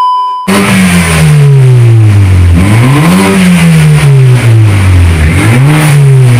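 BMW F30 engine revving through an aftermarket Remus stainless exhaust with twin outlets: the revs sink slowly, then two throttle blips about 3 s and 5.5 s in, each followed by the revs falling away. A brief high beep comes first.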